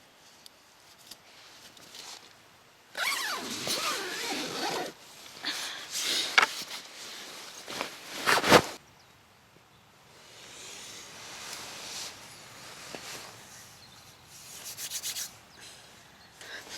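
Fabric and gear rustling, with zips pulled in several irregular bursts, and one sharp knock about halfway through.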